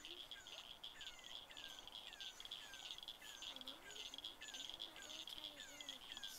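Faint, evenly repeating chirps, about two a second, each a short falling note, over a steady high pulsing trill.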